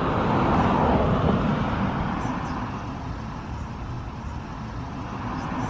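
Road traffic noise: a motor vehicle passing, loudest about a second in and then slowly fading into a steady low rumble.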